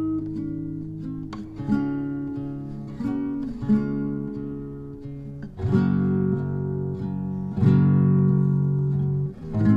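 Background music: an acoustic guitar playing chords, each struck and left to ring out.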